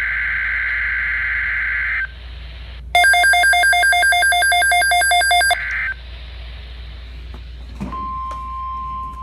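Emergency Alert System SAME header: two shrill, warbling data-tone bursts about a second apart, the second louder and buzzier. About two seconds later the steady NOAA Weather Radio 1050 Hz warning alarm tone begins, marking the start of a severe weather alert.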